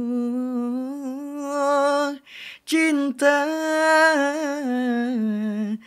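Male voice singing unaccompanied: a long held note, a quick breath about two seconds in, then another long drawn-out phrase whose pitch wavers and bends.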